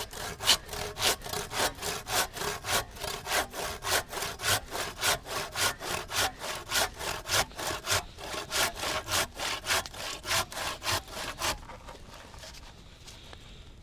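Long hand saw cutting through a log in quick, even strokes, about three a second, until the sawing stops about eleven seconds in with the log cut partway through.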